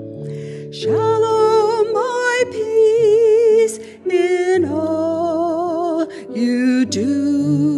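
A woman singing a slow solo hymn with wide vibrato, holding long notes in phrases with short breaks, over sustained organ chords.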